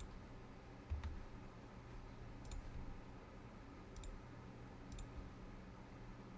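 Four faint computer mouse clicks, spaced roughly a second apart, over a low steady hum.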